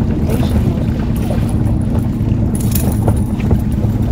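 Boat's outboard motor running steadily, a low even drone, with a short burst of hiss a little past halfway.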